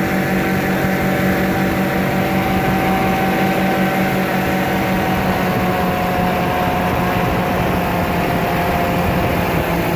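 Powered parachute engine running steadily over a steady rushing hiss, its tone easing down slightly about halfway through.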